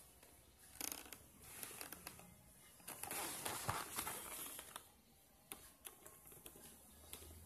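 Cardboard product box being handled and turned over in the hands: rustling and scraping of the card, loudest for a second or so about three seconds in, with scattered light taps and clicks.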